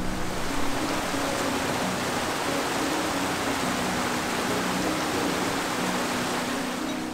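Mountain stream rushing over rocks: a steady, even rush of water, with quiet background music beneath it.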